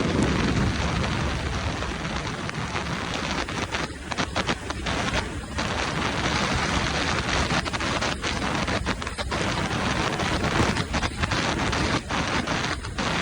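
Wind rushing and buffeting against the microphone of a moving motorbike's camera: a steady roar with short dips in level several times.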